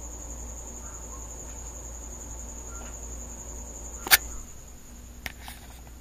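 A cricket trilling steadily on one high note, which stops suddenly about four seconds in, just after a sharp loud click; a few fainter clicks follow.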